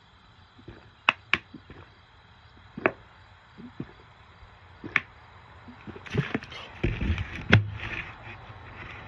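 A few scattered sharp clicks and knocks, then busier handling noise with dull thumps from about six seconds in.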